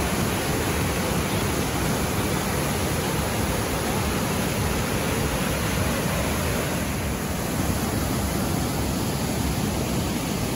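Waterfall in heavy flow pouring over rock ledges into a foaming pool: a steady, even rush of water.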